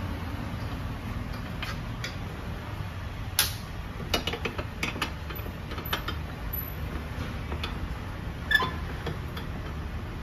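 Metal hand tool clicking and clinking on bolts under a scooter's transmission cover, in irregular short clicks over a steady low hum. A louder metal clink rings briefly near the end.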